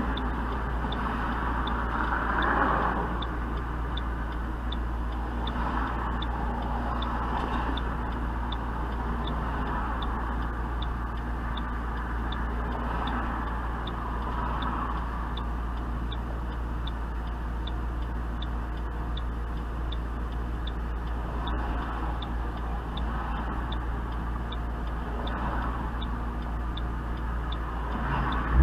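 2008 Mustang GT's V8 idling through an SLP Loudmouth exhaust with a steady low rumble. A high, even ticking runs over it at about two to three ticks a second.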